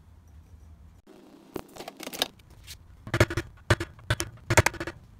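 A small hammer tapping the steel engine key into the keyway on a small engine's output shaft: several sharp metallic taps with a short ring, starting about three seconds in, after some rustling and handling.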